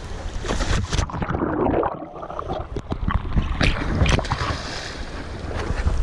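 Water splashing and gurgling around a swimmer's action camera at the surface. Scattered sharp splashes, and about a second in the sound turns muffled for a couple of seconds as the camera dips under.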